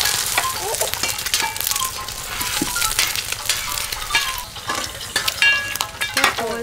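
Food frying and sizzling in hot oil while it is stirred, with many sharp clinks and scrapes of a utensil against the pan.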